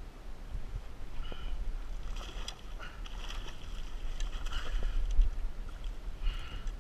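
Water splashing and sloshing against a kayak hull as a hooked little tunny (bonita) thrashes at the surface alongside, in several short bursts, over a steady low wind rumble on the microphone.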